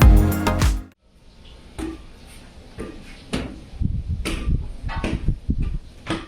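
Music stops abruptly about a second in. It is followed by an uneven run of sharp clicks, knocks and dull thuds of objects being handled.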